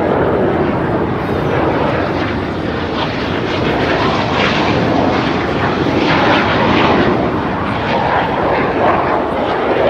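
Jet engines of BAE Hawk T1 display aircraft flying past: a loud, steady rushing noise that swells a little and eases off.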